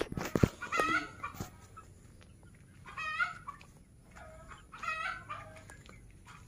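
Ayam bangkok chickens (Thai game fowl) in their coop giving short, pitched, clucking calls about every two seconds. A few sharp knocks sound in the first second and a half.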